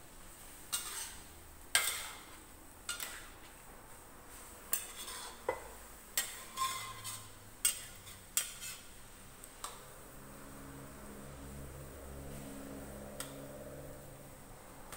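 A spatula knocking and scraping against a stainless steel wok as a wet, saucy mixture is stirred: about a dozen sharp clinks over roughly ten seconds. The knocks stop about ten seconds in.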